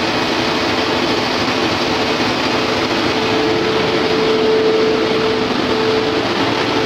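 Perkins 4006-23TAG diesel generator engine running steadily after its injector timing has been set, a steady whine riding over the engine noise.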